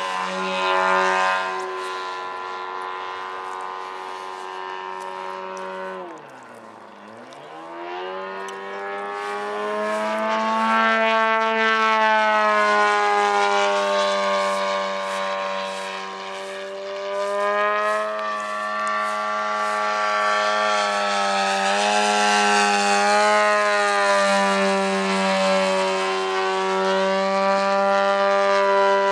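DLE-222 two-stroke gas engine of a giant-scale RC Yak 54 running at high power in flight. About six seconds in the throttle is chopped and the pitch and level dip sharply, then it opens up again, the pitch rising and falling as the plane manoeuvres.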